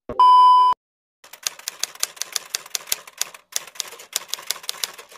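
A brief loud electronic beep with a glitchy crackle, then a typewriter sound effect: a quick irregular run of key clacks with a short pause about halfway.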